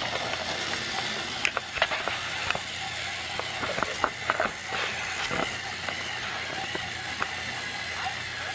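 Motorised toy train running on plastic track: a steady motor whir with scattered clicks and knocks, most of them in the first half.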